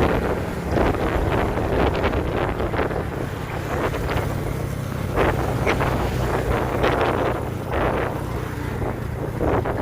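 A vehicle engine running steadily while moving, with wind buffeting the microphone in irregular gusts.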